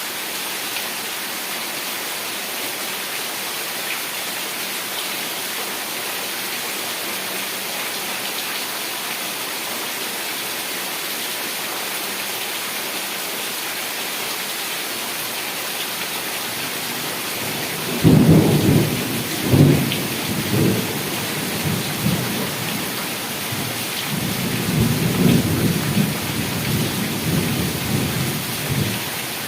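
Steady heavy rain. About two-thirds of the way in, a sudden clap of thunder breaks into a low rumble, and near the end a second, longer roll of thunder rumbles.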